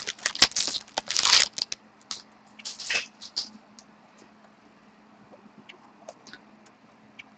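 Foil wrapper of a hockey card pack being torn open and crinkled: a quick run of crackles and clicks over the first three seconds or so, then a few faint ticks as the cards are handled.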